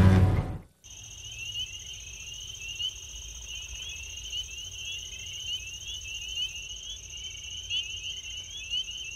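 Music fading out in the first second, then insects chirping: one steady high-pitched trill with rapid, overlapping short chirps just beneath it.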